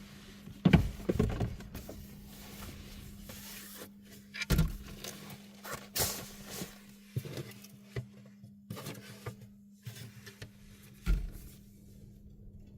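Objects being handled and set down inside a small vehicle cabin: irregular knocks and thumps with rustling between them, the loudest thump about a second in. A steady low hum runs underneath.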